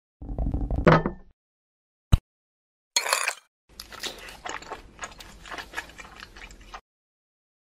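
Stop-motion sound effects: a short buzzy effect with a rising tone, a single sharp click, a brief hiss, then about three seconds of crisp crackling and crunching as a fork picks at a plate of food.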